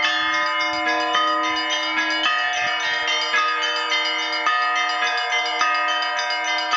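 Russian Orthodox church bells rung together as a zvon: smaller bells struck rapidly, several times a second, over the deep steady hum of the big bell, a 120 kg blagovestnik from Vladimir Shuvalov's foundry that leads the ringing.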